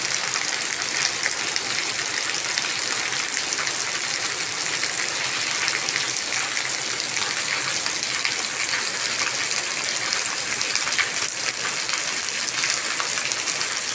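Heavy rain pouring onto a paved lane, with runoff water streaming across the wet surface; a steady, dense hiss and patter of drops.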